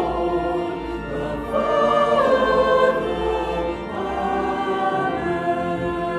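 Choir singing, with several voice parts holding long notes and moving together.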